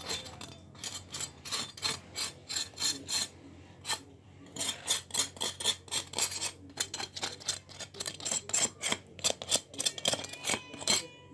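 Crisp grilled pork skin being sawn or cut through: a run of short, rasping, crunchy strokes, about three a second, with a brief pause about four seconds in.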